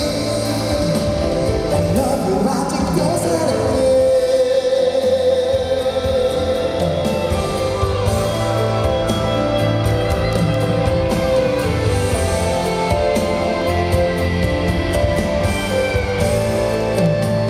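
Live pop music: a sung vocal over a full backing band, played loud and steady.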